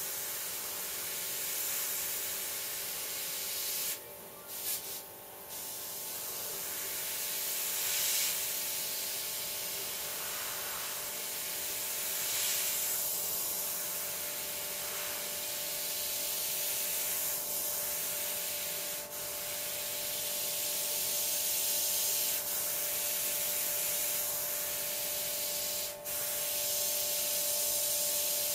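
Airbrush spraying paint: a steady hiss of air that breaks off briefly about four seconds in and for a moment twice later, with a steady hum underneath.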